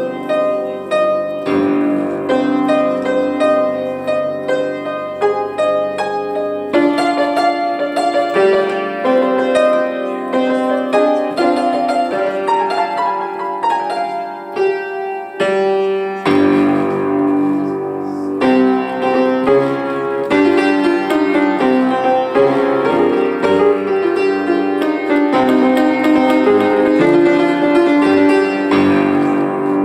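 Piano played solo: a quick stream of repeated notes over held lower notes, with a short break in the pattern about halfway through.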